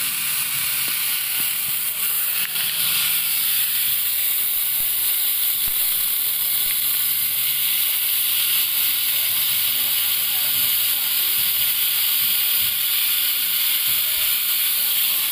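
Angle grinder fitted with a chainsaw attachment, running steadily while its chain cuts through a mango branch, a loud, even hissing noise.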